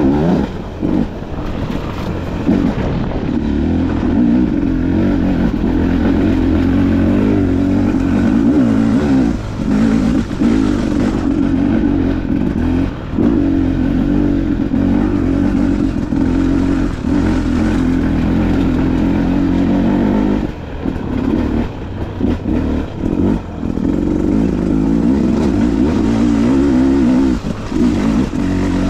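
Dirt bike engine running under throttle on a trail ride, the throttle eased off and back on several times, with a cluster of short drops about two-thirds of the way through.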